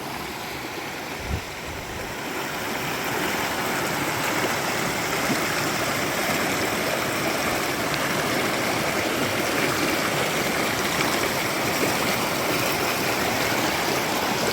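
Fast mountain river rushing over rocks, a steady roaring water noise. It grows louder over the first few seconds, then holds steady.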